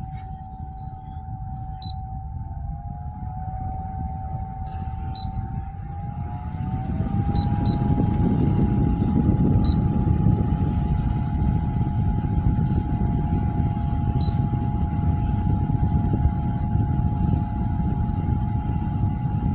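Small personal air cooler fan running: a steady motor whine that steps up in pitch twice, with the rush of blown air growing louder from about seven seconds in. A few short ticks sound here and there.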